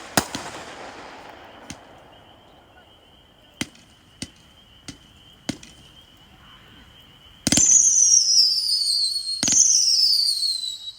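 Consumer firework cake firing: a sharp report just at the start that trails off in crackle, four quick pops of shots leaving the tubes, then two loud whistles, each falling in pitch over a second or two.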